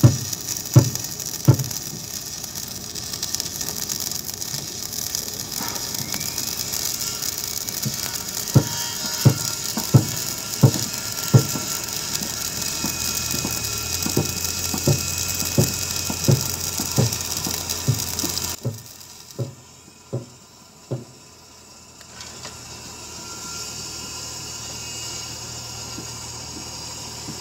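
Stick (SMAW) welding arc on a 6013 rod at about 150 amps, crackling and hissing steadily as a bead is run on steel plate, stopping about two-thirds of the way through. Regular thuds about every three-quarters of a second sound over it and go on briefly after the arc stops.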